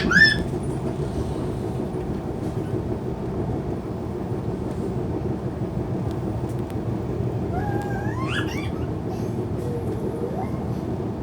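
Steady low rumble of the Jayakarta passenger train running along the track. A short high gliding sound comes right at the start, and a rising one about eight seconds in.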